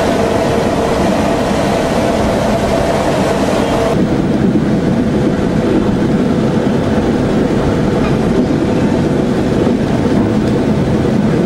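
Narrow-gauge railcar of the former County Donegal Railways running along the track, heard from on board: steady engine and running noise with a faint droning tone. The sound changes abruptly about four seconds in.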